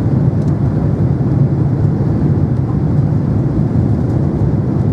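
Steady rumble of engines and airflow inside the cabin of a Boeing 767-300 airliner on final approach to landing.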